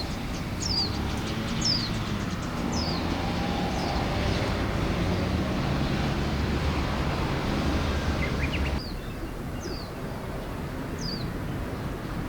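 A bird calling over and over in short falling chirps, over the low rumble of an engine or traffic that cuts off abruptly about nine seconds in.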